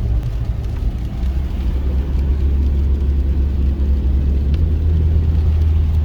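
Steady low rumble of a Mitsubishi Pajero iO on the move, engine and road noise heard from inside the cabin.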